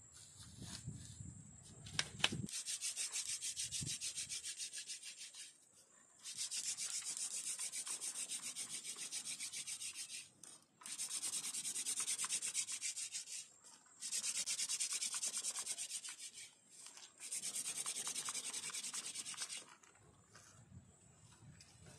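Fire-making hand drill: a wooden drill stick spun back and forth between the palms, grinding into a wooden hearth board. It comes in five spells of rapid, even rasping strokes with short pauses between them, after a sharp click about two seconds in.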